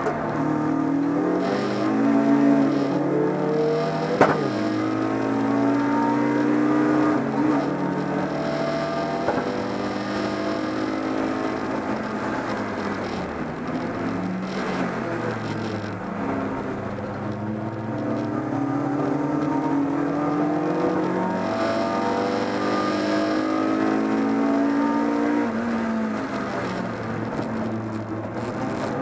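A BMW 318is race car's four-cylinder engine heard from inside the cabin at racing speed, revving up through the gears and dropping back again and again. About four seconds in comes one sharp knock.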